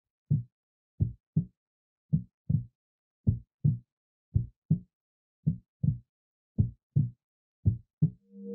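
Heartbeat sound effect: a single low thump, then seven lub-dub double thumps, about one beat a second. Music begins to swell in near the end.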